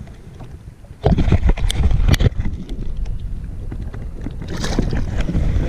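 Wind rumbling on the microphone, with a cluster of sharp knocks and clatter starting about a second in and more near the end.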